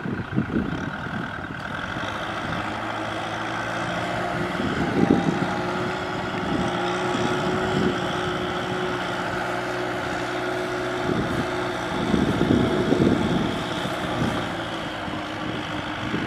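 Kubota M6040SU tractor's four-cylinder diesel engine running steadily under load as it pulls a cultivator through mud. Wind buffets the microphone in a louder rumble about twelve seconds in.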